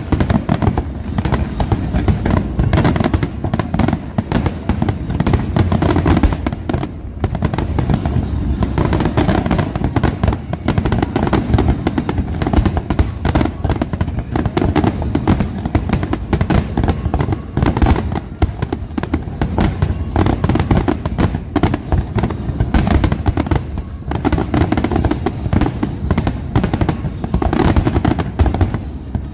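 Fireworks display in a dense, continuous barrage: aerial shells bursting in rapid succession with no real pause, bangs overlapping one another.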